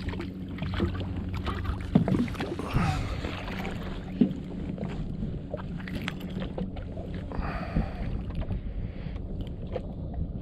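Yamaha FXHO WaveRunner jet ski engine idling with a steady low hum, with water noise around the hull. A few short knocks come about two to four seconds in.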